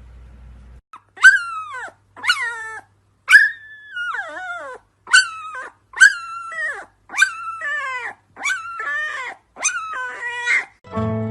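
A dog giving about ten high, yelping cries, roughly one a second, each sliding down in pitch.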